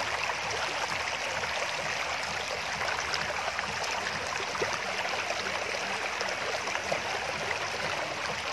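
Shallow river water running over a stony bed: a steady babbling rush with many little splashes and gurgles.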